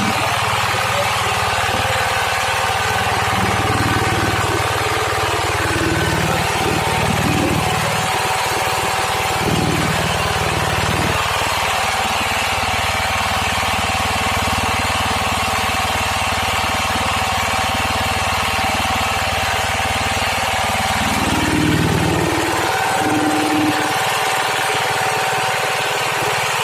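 MPM 120 pellet mill running steadily under test, with a steady mechanical drone and a shift in its low rumble about 21 seconds in.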